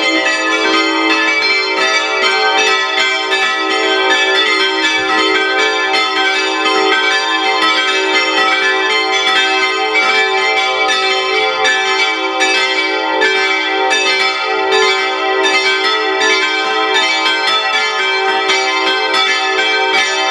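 Full peal of five bronze church bells from the Rincker foundry, tuned e'' g'' a'' c''' d''', swinging in a small bell tower and striking over and over, their tones overlapping in a continuous ringing. They are ringing people in to a church service.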